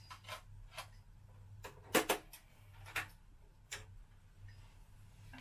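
Scattered light plastic clicks and knocks, the loudest a quick double click about two seconds in, from handling an 8 cm CD single and loading it into a CD player, over a low steady hum.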